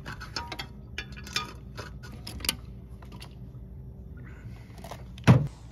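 Metal clicks and clinks of needle-nose pliers gripping and pulling wire terminals off a hermetic compressor's terminal pins: several light clicks over the first couple of seconds. A single louder knock near the end.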